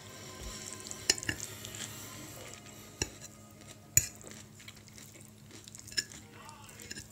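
Metal fork clinking and scraping against a plate: a handful of sharp clinks, the loudest about four seconds in, over a low steady hum.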